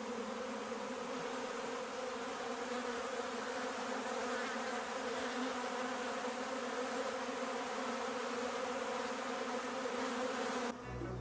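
A swarm of honeybees in flight: thousands of bees buzzing together in a steady hum. It cuts off near the end.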